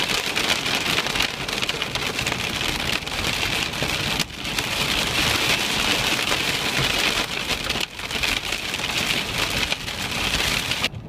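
Heavy rain pelting a car's windshield and roof, heard from inside the cabin: a dense, steady patter of drops, dipping briefly twice.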